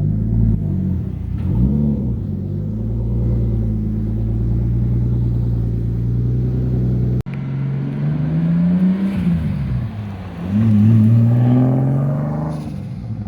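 Big-turbo 2JZ straight-six swapped into a Nissan Cima revs briefly, then holds a steady speed. After an abrupt cut it revs up and back down twice.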